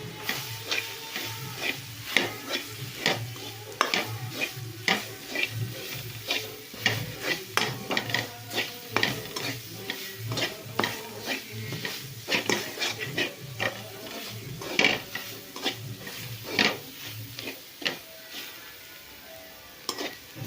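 Stirring and scraping in a kadhai as crushed peanuts are fried with green chillies, garlic and salt in oil: sharp clinks of the utensil against the pan, about two a second, over a light sizzle.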